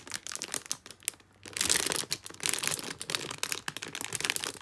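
Clear plastic bags holding plastic model-kit runners crinkling as they are handled. The crinkling dips briefly about a second in and is louder again from about one and a half seconds in.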